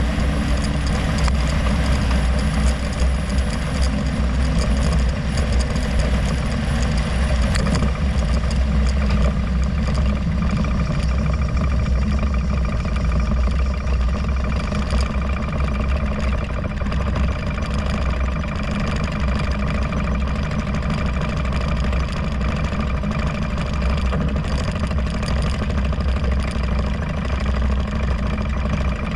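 Harley-Davidson Road Glide's V-twin engine running under way with wind and road noise. The wind rush thins about eight seconds in as the bike slows, and the engine settles to a low, steady run as it comes to a stop in traffic.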